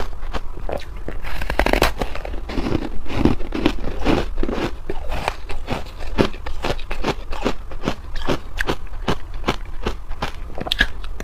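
Ice being bitten and chewed close to the microphone: a dense run of sharp, loud crunches and crackles, several a second.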